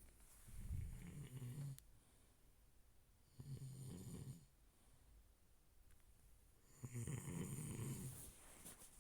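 A person snoring: three snores about three seconds apart, each lasting about a second, with a low rattling buzz.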